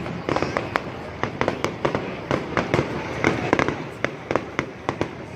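Fireworks going off in a continuous display: many sharp bangs and pops at irregular intervals, over a steady low background rumble.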